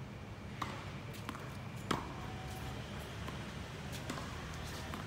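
Tennis balls hitting the hard court and racket strings: scattered sharp pops at irregular intervals, the loudest about two seconds in, over a steady low hum.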